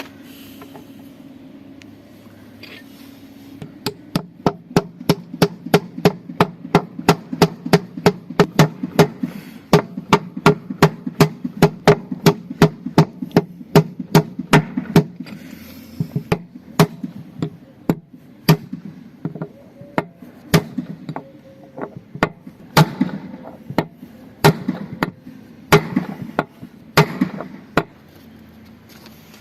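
Hammer blows on metal, a fast run of about three a second, then slower, irregular strikes near the end, from tapping a part into a washing machine's drum bearing housing during a bearing replacement.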